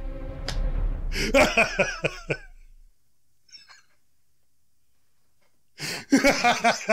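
A man laughing hard in bursts with cough-like gasps, over low soundtrack music that fades out about three seconds in. After a near-silent pause, another loud burst of laughing comes near the end.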